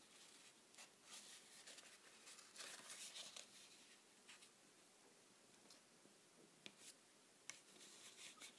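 Faint paper rubbing and rustling as origami folds in designer-series paper are creased with a bone folder, with a few soft scrapes and light ticks.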